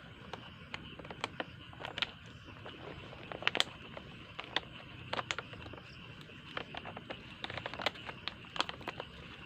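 Irregular sharp clicks and crackles, the loudest cluster about three and a half seconds in, over a steady high-pitched night chorus of insects.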